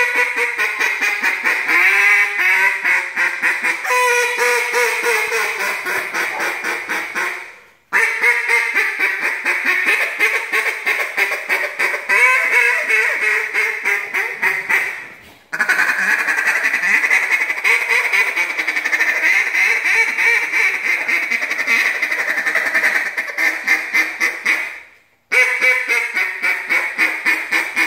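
Acrylic RNT Daisy Cutter Diablo duck call blown in long runs of rapid, raspy quacks, each run fading a little toward its end. Three short breaks for breath split it into four runs, about 8, 15 and 25 seconds in.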